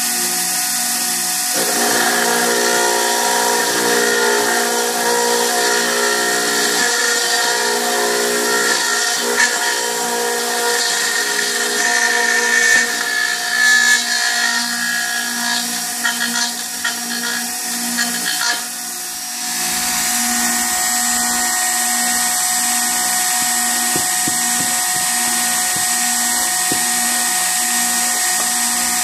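Router with a 1/4-inch cutter running at a steady whine while milling aluminum plate. From about two seconds in to about nineteen seconds the cutter is in the metal, adding a rougher, uneven cutting noise. After that the router spins steadily without cutting.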